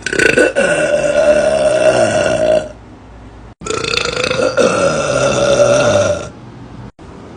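A girl burping: two long burps, each lasting about two and a half seconds, both falling in pitch.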